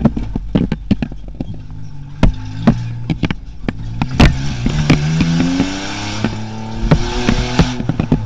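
Rally 4x4's engine heard from inside the cab on a rough dirt track, with frequent sharp knocks and rattles from the body over the bumps. Midway the engine revs climb for a couple of seconds as the car picks up speed again, then hold steady.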